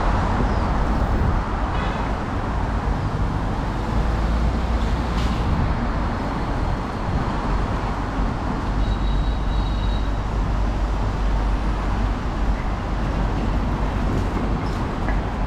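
Steady city road traffic noise, a constant rumble of passing vehicles, with a short faint high tone about nine seconds in.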